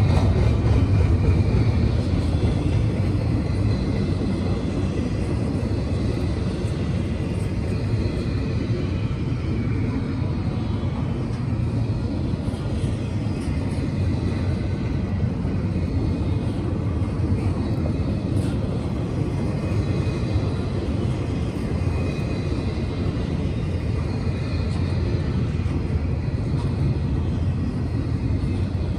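Double-stack intermodal freight train rolling past: a steady, unbroken rumble of steel wheels on the rails.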